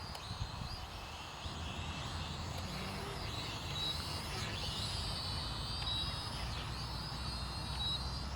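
Air Raiders Smart Drone toy quadcopter's electric motors and propellers whining high, the pitch wavering up and down as it manoeuvres, over a low rumble.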